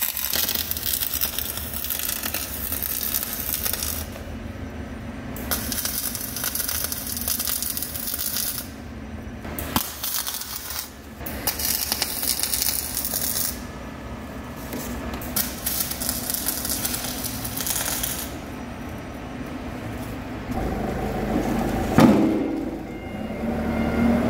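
MIG welding arc crackling in runs of a few seconds with short breaks as the bead is laid in stops and starts along the steel bucket skin seam. Near the end, a forklift engine running and one loud clank.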